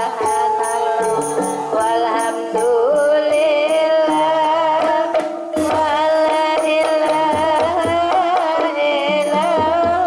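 Javanese gamelan music accompanying a kuda lumping horse-trance dance: kendang hand drums and struck percussion keep a steady, even beat under a wavering, sustained melody line.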